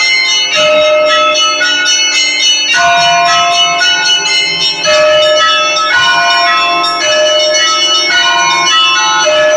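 Russian Orthodox church bells ringing loudly in a continuous peal. Small high bells are struck in a quick, even rhythm, their notes changing every half-second or so, over the lasting hum of larger, deeper bells.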